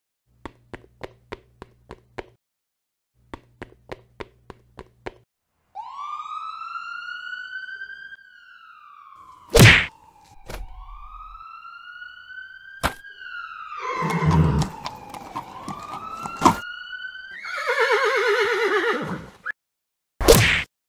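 Added sound effects: short runs of quick clip-clop hoofbeats, then a police siren wailing up and down twice, broken by a few sharp hits, and a loud horse whinny near the end followed by one more hit.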